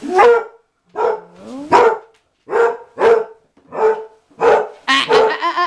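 Basset hound barking repeatedly indoors, about two loud barks a second, with a short rising whine between barks about a second and a half in.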